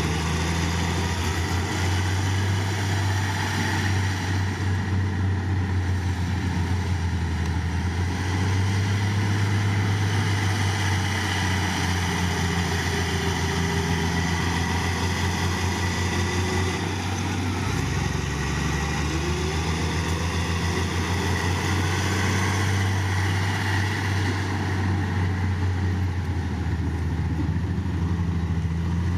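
Heavy diesel engine of earthmoving equipment running steadily, its pitch shifting up and down a little now and then as the load changes.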